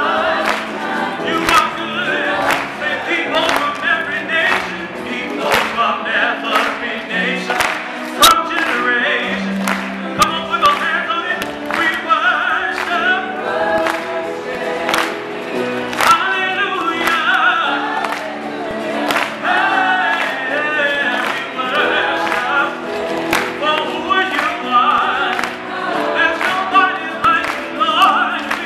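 Gospel choir singing with a male lead voice on microphone, with sharp handclaps keeping the beat about once a second.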